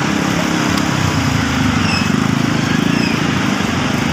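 A bus's diesel engine rumbling steadily as it passes close by, swelling a little around the middle, with no horn sounding.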